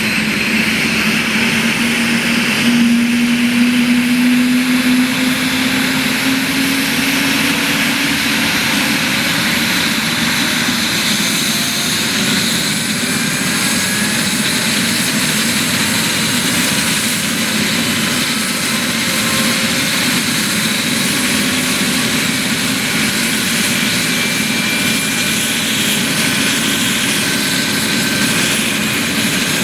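Aerospatiale AS 365 Dauphin rescue helicopter running close by, its twin turboshaft engines and rotors making a loud, steady noise with a turbine whine. A lower tone climbs a little in pitch over the first several seconds.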